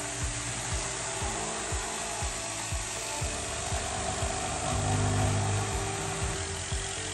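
Electric jigsaw cutting through a quartz countertop slab, a steady rasping saw noise, over background music with a steady beat of about two thumps a second.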